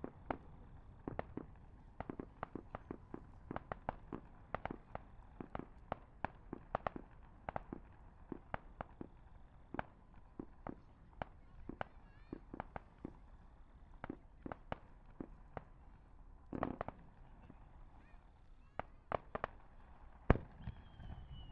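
Aerial fireworks bursting: a rapid stream of sharp cracks and pops, with a few heavier bangs around the middle and near the end. A high whistle, slowly falling in pitch, begins near the end.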